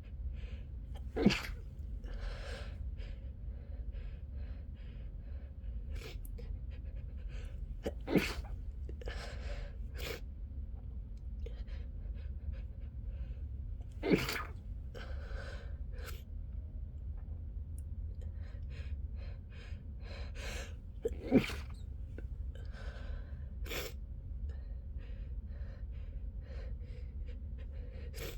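A person sneezing four times, muffled into a pillow, the sneezes about six to seven seconds apart, with quieter breathing sounds in between.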